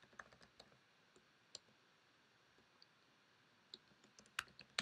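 Faint computer keyboard keystrokes as code is typed: scattered single clicks with pauses, a few coming closer together near the end.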